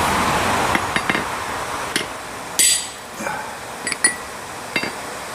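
Hammer blows on a chisel cutting grooves into a railroad spike's handle: a series of sharp metallic strikes at uneven spacing, the loudest about two and a half seconds in, ringing briefly.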